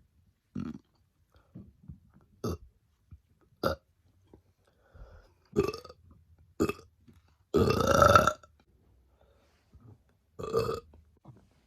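A woman burping on command, over and over: six short burps spaced one to two seconds apart, and one longer, louder burp about eight seconds in.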